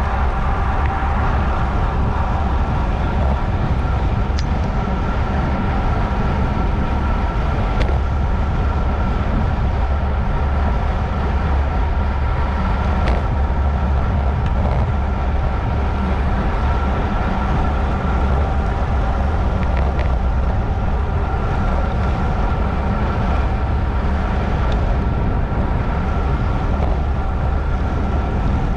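Steady wind rush and road noise from a road bike ridden at race speed, about 28 mph, heavy and low on the microphone, with a faint steady whir and a few light clicks.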